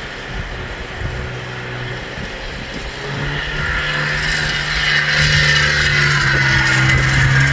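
Polaris 300 ATV's two-stroke engine running steadily on its freshly fitted oversized piston, getting louder about three seconds in; it runs but will not hold an idle.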